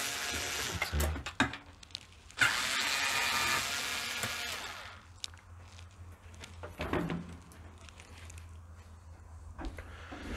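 Cordless electric screwdriver whirring in two runs, a short one at the start and a longer one of about two and a half seconds, backing Torx screws out of a dishwasher door. Then a few faint clicks and knocks.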